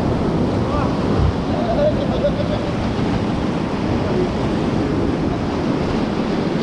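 Whitewater rushing and churning around an inflatable raft running a rapid on a rocky mountain river: a loud, steady noise strongest in the low range.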